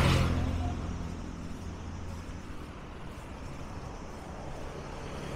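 Road traffic: a motor vehicle passes close by at the start, its engine and tyre noise loudest then and fading away over the next few seconds, with another vehicle coming up near the end.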